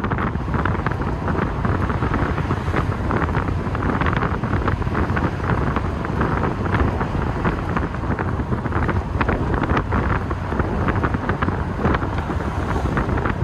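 Steady wind buffeting on the microphone in the open cockpit of a V8 TVR driving along a country road, with the car's engine and tyre noise running underneath.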